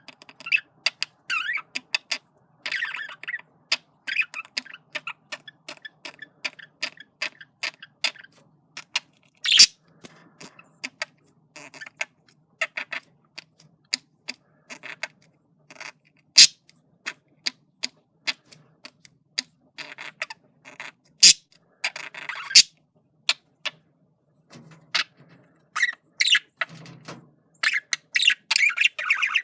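Male budgerigar's courtship chatter: a running string of quick clicks, ticks and short scratchy chirps, with a few sharper, louder chirps scattered through.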